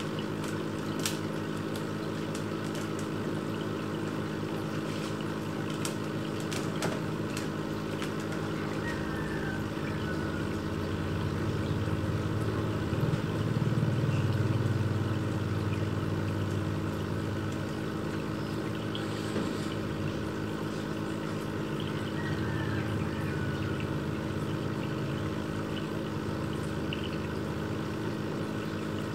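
Aquarium filter pump humming steadily with water trickling, a few faint clicks, and the low hum swelling louder for a few seconds around the middle.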